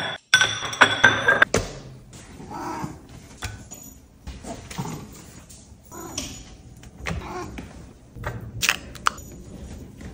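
Ceramic plates set down on a countertop and a spoon scraping and tapping wet cat food onto them: a series of clinks and knocks, busiest in the first second or so.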